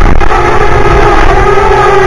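Parrot Bebop 2 quadcopter hovering close overhead, its propellers giving a loud, steady buzzing hum, over the rumble of wind on the microphone.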